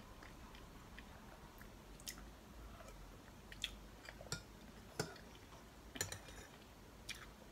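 A metal spoon clinking lightly against a bowl and soft eating sounds as sujebi, a dough-flake soup, is spooned up and chewed. About six short light clicks come at irregular intervals.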